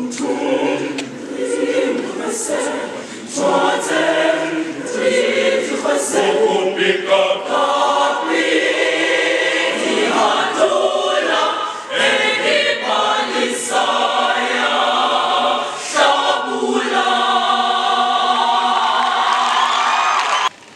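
School choir of mixed boys' and girls' voices singing in several parts, phrase after phrase with brief breaths between; the singing cuts off suddenly just before the end.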